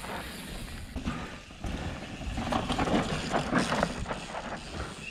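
Downhill mountain bike riding through a loose dirt corner: tyres scrubbing and skidding on the dirt, with the chain and bike rattling and the rear hub clicking as it coasts. The rattling is busiest about two and a half to four seconds in.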